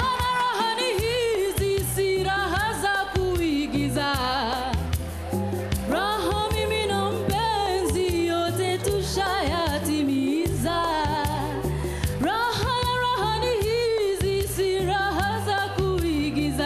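A woman singing a soulful pop song with a lot of vibrato on held notes, over accompaniment with a steady bass line and beat.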